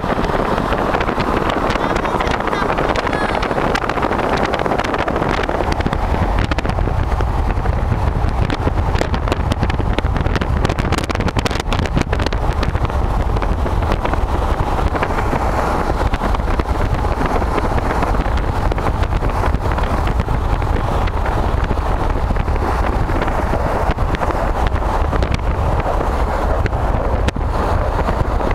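Steady rushing road and engine noise of a car driving on a highway, with wind buffeting the microphone as a deep rumble that gets stronger after about six seconds.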